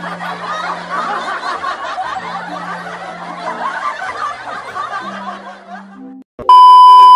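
Laughter sound effect over background music with low held notes, fading out about six seconds in. It is followed near the end by a loud, steady electronic beep like a censor bleep.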